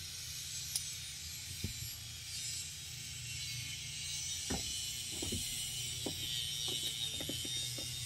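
Ratchet clicking in short, irregular runs from about halfway through as the window regulator track bolts go into the car door, over a steady low hum.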